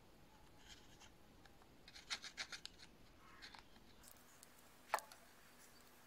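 Wooden toothpick scraping grime out of the gaps between the buttons of a Sony TV remote: short, faint scratchy strokes, with a quick run of about six scrapes in the middle and a single sharp tick about five seconds in.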